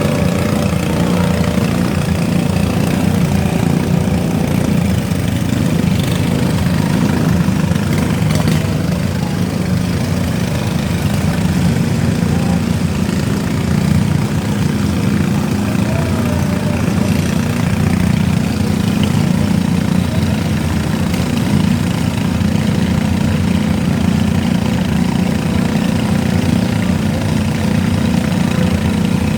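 Riding lawn mower engines running steadily and without a break.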